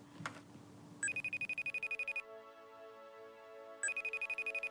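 A smartphone ringing while a video call is placed: two bursts of a fast electronic trill, each a little over a second long, with softer steady tones between them.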